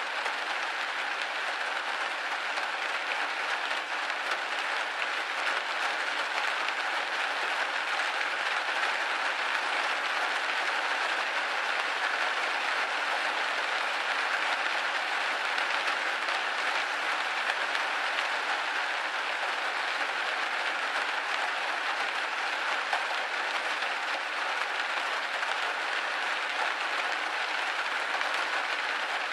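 Rain hitting a window pane: a steady, even hiss of dense drops that neither swells nor fades.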